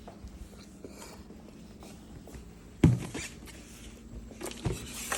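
Handling noises: faint rustling, one sharp knock about three seconds in, then a run of small clicks and rustles.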